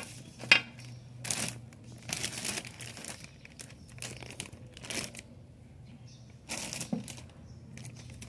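Clear plastic parts bags crinkling and rustling in irregular bursts as they are handled, with one sharp knock about half a second in.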